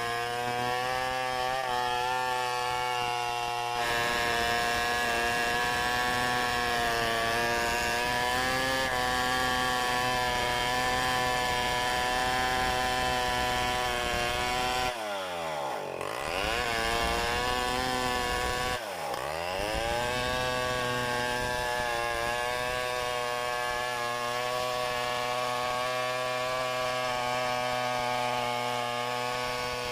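A chainsaw running at high revs while cutting wood, its engine note steady except for two brief sharp drops in revs around the middle, each recovering quickly.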